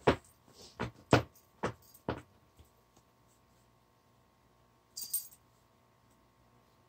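A glass jar being handled: a run of about six sharp clinks and taps over the first two and a half seconds, then a brief high rustle about five seconds in.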